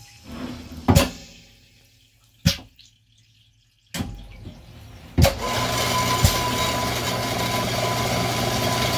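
Tormach AF50 automatic bandsaw starting its cycle. A series of sharp pneumatic clunks, some followed by a short hiss of air, as the air-driven vises and feed table move the aluminum bar into place. About five seconds in, the blade motor starts and runs steadily.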